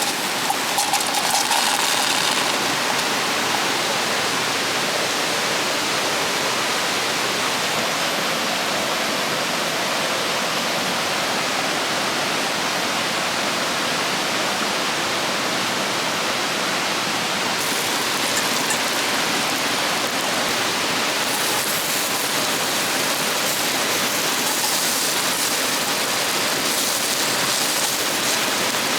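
Steady rushing of a fast-flowing river over rocks.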